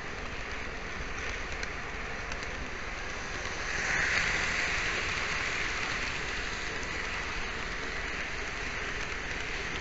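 N-scale model train rolling over Kato Unitrack, picked up by a mini camera riding on the train as a steady rain-like rushing rattle. It grows louder and brighter about four seconds in.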